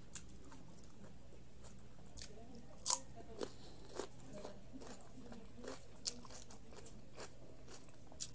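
Raw cucumber being bitten and chewed: a scattering of crisp crunches, the loudest about three seconds in.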